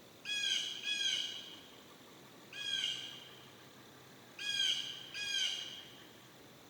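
Blue jay giving harsh squawking calls: five in all, a quick pair, a single call, then another pair.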